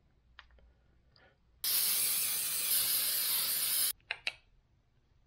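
Aerosol spray can hissing in one steady blast of about two seconds that starts and stops abruptly, followed by two quick clicks.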